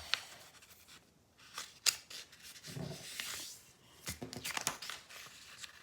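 A sheet of paper being folded and creased by hand: crisp rustling and crackling, with a sharp snap a little under two seconds in.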